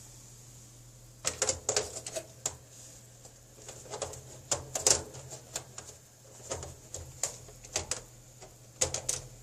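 Clicks and knocks of a Dell OptiPlex GX620 ultra small form factor computer's case parts being fitted back together, in irregular clusters starting about a second in, over a steady low hum.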